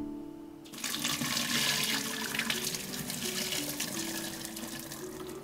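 Hot blanching water and sweet potato stems poured from a pot through a stainless mesh strainer into a stainless steel sink, the water splashing steadily from about a second in.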